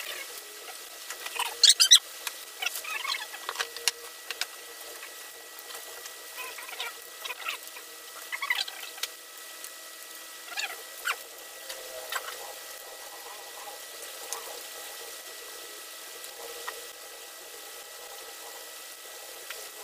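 Irregular short scrapes, squeaks and rustles of a gaming chair's parts and packing being handled during assembly, the loudest about two seconds in, over a faint steady hum.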